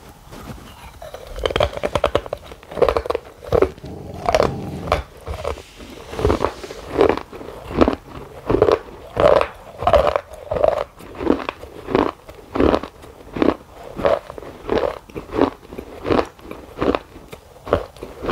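A person biting and chewing a chocolate bar, picked up closely by a clip-on microphone: crunchy bites in the first few seconds, then steady mouth-closed chewing at about three chews every two seconds.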